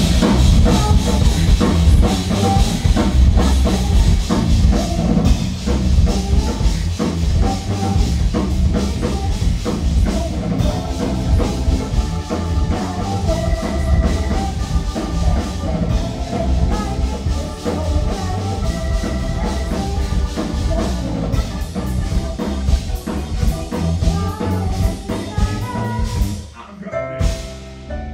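A live rock band comes in all at once with a loud instrumental intro of drum kit, bass guitar and stage keyboards. Near the end the band thins out to a quieter, sparser passage.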